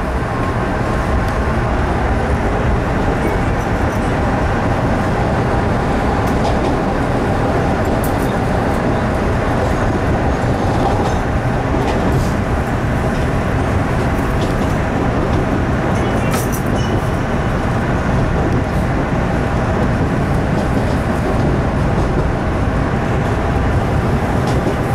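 MBTA Red Line subway car (01800 series) running on the track, heard from inside the rear cab: a steady rumble of wheels and traction motors as it pulls away from a station, with a few light clicks.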